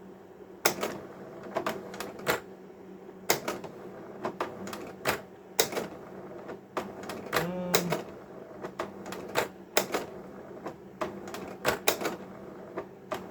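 Cabin 1000A slide projector's slide-change mechanism clacking repeatedly, a sharp clack about every second, as it cycles slides through, over the projector's steady running hum. After the slider adjustment it feeds the slides without struggling.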